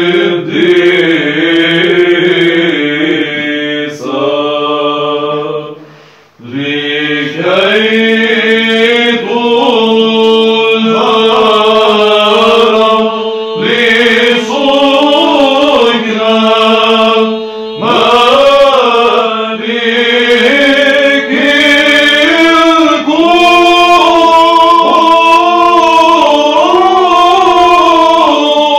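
A choir of monks chanting Byzantine chant in Arabic: a slow, ornamented melody over a steady held drone note (the ison). The voices break off briefly about six seconds in, then resume.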